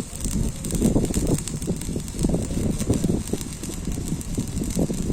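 Electric arc welding crackling irregularly, over an uneven low rumble.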